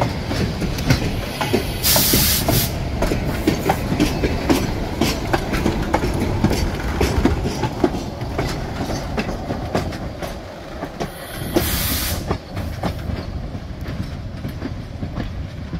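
NCRR #17, a 4-4-0 steam locomotive, rolling with its train: a steady rumble with many sharp clicks and clanks from the wheels and running gear on the rails. Two loud bursts of hiss break through, about two seconds in and again about twelve seconds in.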